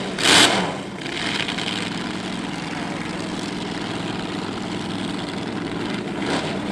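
Supercharged dragster engines idling with a steady, lumpy run, broken by a short, loud throttle blip about half a second in and a smaller one near the end.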